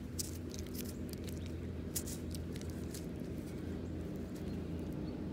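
Faint scattered clicks and scratches from a small dug-up metal object being handled and rubbed clean, over a steady low hum.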